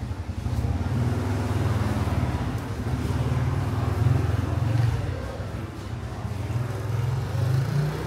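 A motor vehicle's engine running, a steady low rumble that eases briefly about five seconds in.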